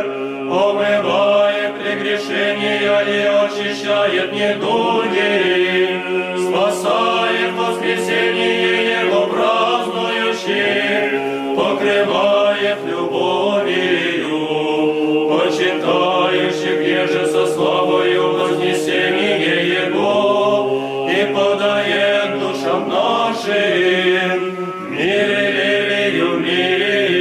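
Choir chanting a slow Orthodox church hymn, voices holding long chords that change every few seconds.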